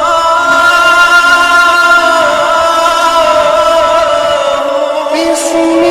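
Opening music of long held notes that slide slowly in pitch. A lower note joins near the end.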